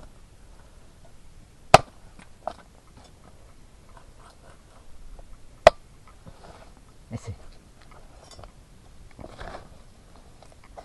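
A machete chopping through boiled chicken onto a wooden board: two sharp, loud chops, about two seconds in and nearly six seconds in, with a few softer knocks between and after.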